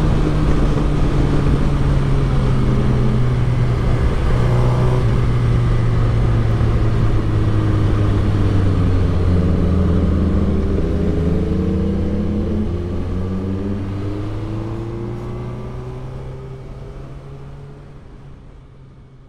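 Suzuki GSX-R1000 K6 inline-four motorcycle engine running at steady, fairly low revs, its pitch drifting up and down a little with the throttle. The sound fades out over the last several seconds.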